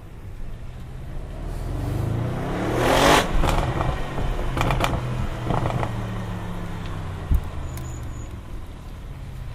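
Audi RS6 Performance's twin-turbo V8 accelerating, its note rising for about three seconds, then a string of short exhaust crackles and pops before it settles to a steadier, lower drone. A single knock comes about two seconds before the end.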